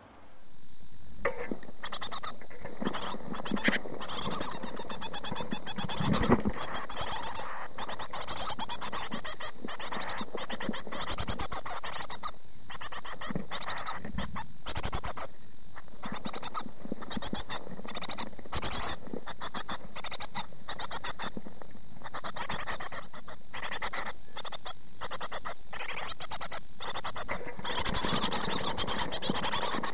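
Great tit nestlings inside a wooden nest box: repeated bursts of high-pitched begging calls over a steady high hiss, with scratching and rustling as the chicks shift about. It grows busier near the end.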